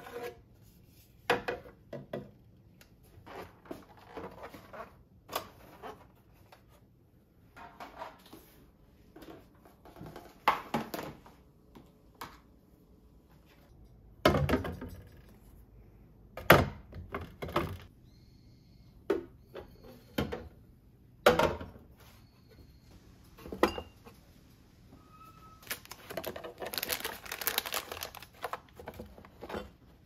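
Clear plastic refrigerator door bins and storage containers being handled, lifted out and set back in place: scattered knocks, clicks and clunks of hard plastic, with a longer stretch of rattling about four seconds before the end.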